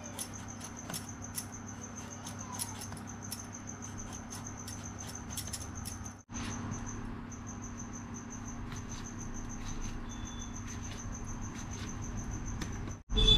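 Eggplant being sliced on a bonti, a curved floor-mounted cutting blade: soft, irregular clicks and crunches as small pieces are cut off, over a faint steady hum.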